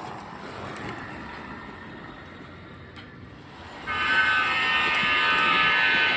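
Sound system of an MTH Premier NJ Transit AEM-7 model electric locomotive: a low running rumble, then about four seconds in the horn comes on, a loud held chord.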